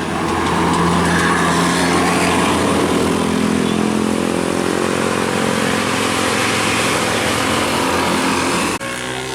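A bus engine running as the bus pulls past, over a broad rush of road noise, its note slowly rising as it gathers speed; the sound cuts off abruptly near the end.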